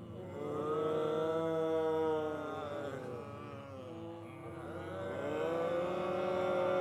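Zombie crowd: many voices moaning together in long, drawn-out overlapping moans that swell twice, rising and falling in pitch.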